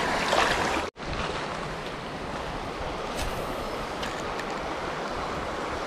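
Steady rushing of a shallow river running over stones, with a brief dropout about a second in.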